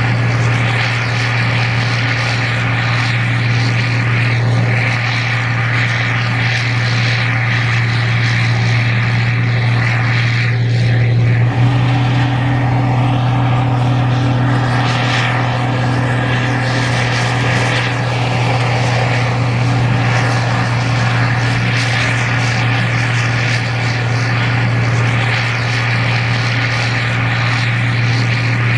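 Gleaner R52 combine harvester running steadily as it harvests corn, a constant low engine and machinery drone; a second, slightly higher hum joins about twelve seconds in.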